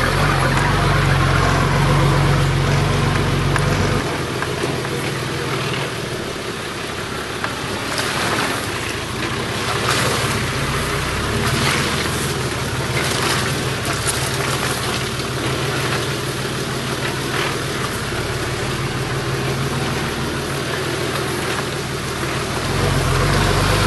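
Four-wheel-drive vehicle driving along a rough dirt bush track, its engine running steadily under the jolting of the body. The engine's low note drops about four seconds in and comes back near the end. In the middle there is a run of sharp knocks and rattles as it goes over the bumpy, overgrown section.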